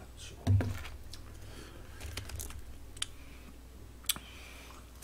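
Tableware being handled: a bowl set down on the table with a thump about half a second in, then a few light, sharp clicks of chopsticks and dishes as noodles are picked up.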